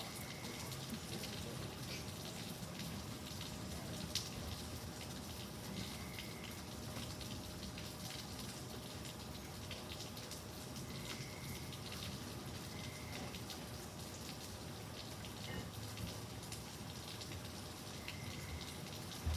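Steady rain from an easing thunderstorm, with scattered drops ticking on nearby surfaces.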